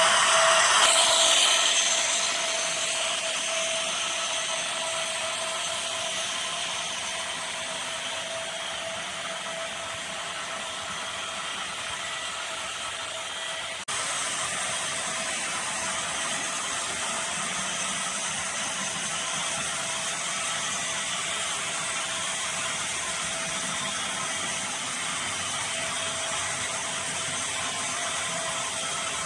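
HO scale model freight train running past: the GE Dash 9-44CW locomotives' motors and sound hum are loudest in the first couple of seconds, then a long string of tank cars rolls by with a steady rattling clatter of wheels on the track.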